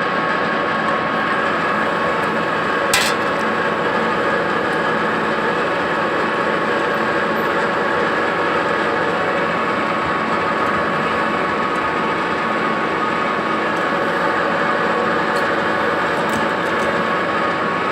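Metal-working lathe running steadily, its spindle and gearbox giving a whine of several fixed tones over a mechanical hum. A single sharp click about three seconds in.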